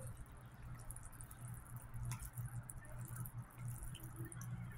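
Wooden stir stick stirring neem powder into oil in a plastic bucket: faint wet sloshing with light clicks of the stick against the bucket, over a low steady hum.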